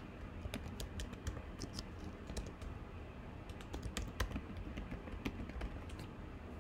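Typing on a computer keyboard: light, irregular key clicks, coming thickly at first and thinning out after about five seconds.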